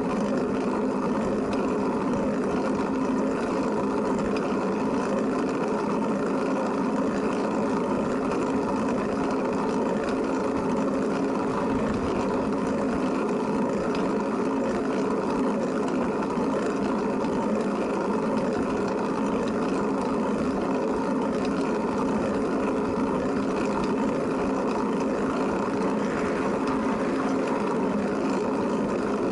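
Steady humming and whirring of a Flevotrike recumbent tricycle rolling along the road at an even pace, unchanged throughout.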